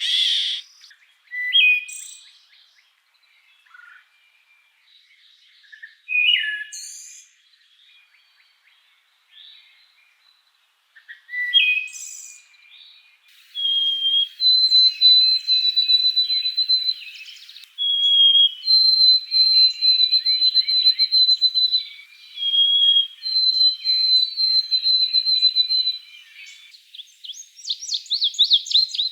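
Wild birds calling and singing: short separate calls with quick falling notes for about the first dozen seconds, then a busier chorus with long, high whistled notes held in phrases a few seconds apart over fainter warbling, and a run of fast repeated notes near the end.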